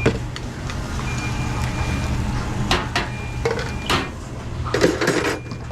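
Busy restaurant kitchen during service: a steady low hum of kitchen equipment under sharp clatters of dishes, pans and utensils, several about three to four seconds in and a cluster near the end.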